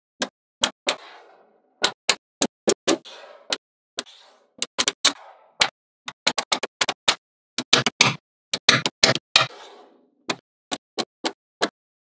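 Small magnetic balls snapping onto one another as a structure is built: sharp, irregular clicks coming singly and in quick clusters, a few followed by a short rattle.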